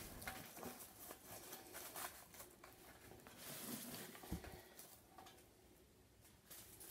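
Faint rustling of artificial fern foliage and light taps against a metal planter tin as the stems are set in place.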